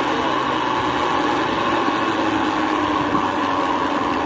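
Rail trolley running along railway tracks, a steady mechanical drone.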